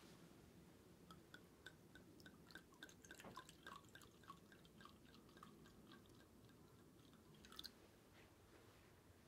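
Sake glugging out of a glass bottle as it is poured into a spouted pourer: a run of soft gurgles, about three a second, with a light clink near the end.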